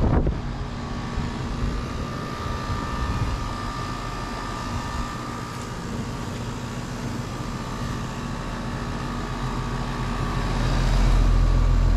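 Rheem Endeavor RP14AZ heat pump running steadily in cooling mode: the outdoor unit's fan and compressor, with a steady whine over an even hum, quiet. A louder low rumble comes in near the end.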